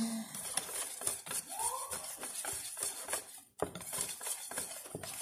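Wire whisk beating cake batter in a mixing bowl, the wires clicking against the bowl's side in quick, irregular taps.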